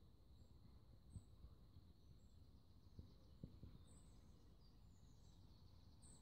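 Near silence with faint, high bird chirps about once a second, a faint steady high tone, and a few soft low thumps.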